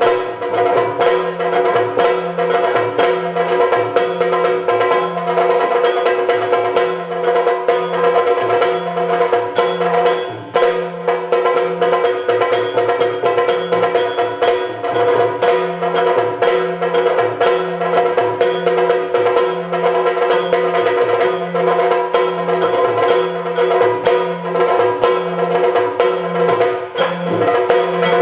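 Yakshagana instrumental music: drums beating a steady, regular rhythm of low, pitched strokes with sharp stick strikes, over a continuous held drone.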